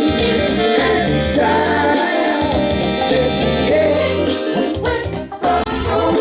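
A song with a sung vocal over a full band accompaniment, played back over a hifi loudspeaker system.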